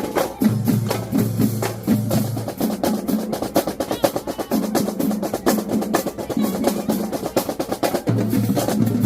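Marching drumline playing a fast cadence: rapid snare strokes over tuned bass drums playing stepped, pitched runs.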